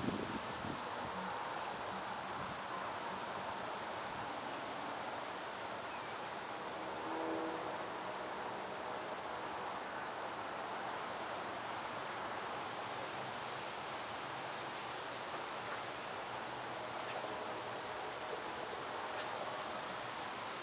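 Steady outdoor ambience of tree leaves rustling in a light breeze, with a continuous high-pitched insect trill.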